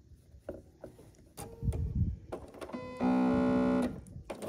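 Light taps and rustles of quilting cotton squares being lined up under a Bernina sewing machine's presser foot. Near the end a steady pitched tone lasts about a second, and then the machine starts stitching.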